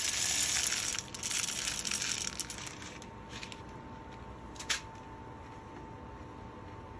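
Dry green coffee beans rattling and shifting for about two and a half seconds, then a few light clicks and one sharp click near the middle, over a faint steady hum.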